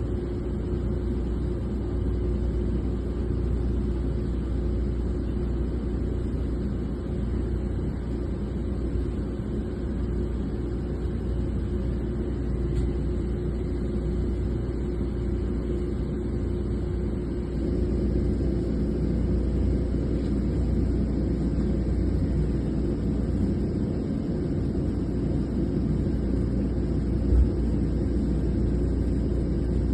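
Heavy drilling-rig machinery running: a steady low rumble with a constant hum, and a single short knock near the end.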